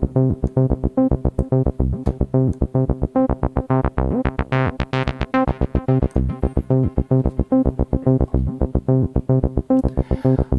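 Acid bassline from an ABL3 software TB-303 emulation: a fast run of short, squelchy synth-bass notes with slides and accents, run through a delay. The tone opens up brighter for a stretch around the middle, then closes again.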